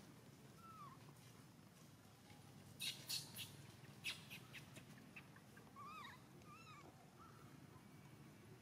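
Near-silent outdoor ambience with a few faint, short arched chirping calls from a small animal, bunched about six to seven seconds in. Two clusters of brief crackling rustles come about three and four seconds in.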